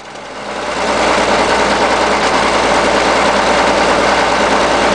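Caterpillar 977K track loader's diesel engine running just after catching on a hard start, its sound building up over about the first second and then holding steady at idle.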